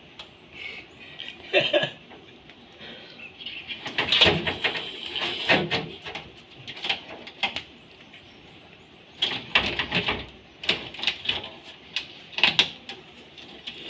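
Irregular knocks, scrapes and rattles against the rear body of a car as it is prodded by hand to drive out a monitor lizard hiding inside. They come in bursts, busiest a few seconds in and again past the middle, with birds chirping faintly behind.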